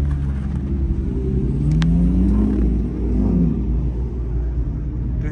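A car engine running close by: a deep, steady sound whose pitch rises and then falls again in the middle, as with a rev or a car moving past.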